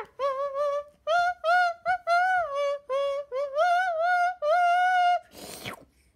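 A child singing a wordless tune in a high voice, in quick separate notes that slide up and down, followed near the end by a short breathy hiss.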